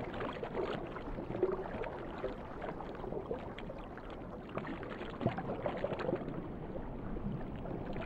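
Muffled underwater water noise: a steady low rush with small gurgles and clicks scattered through it.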